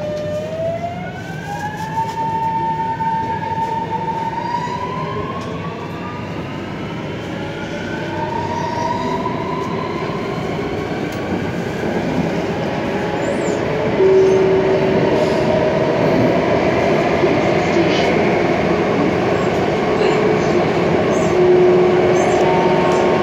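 C751C metro train pulling away and accelerating, heard from inside the car. Its traction motors whine upward in pitch in steps over the first few seconds. Wheel and tunnel running noise then grows steadily louder as it gathers speed.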